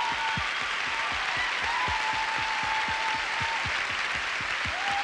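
Large audience applauding as a live rock song ends, with a run of low thumps under the clapping and a thin held tone that comes and goes.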